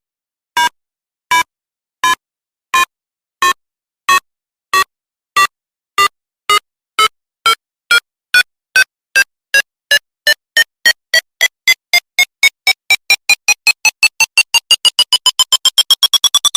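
Electronic countdown beeps: short synthesized tones that start about one and a half per second and speed up steadily until they nearly run together, rising in pitch as they go.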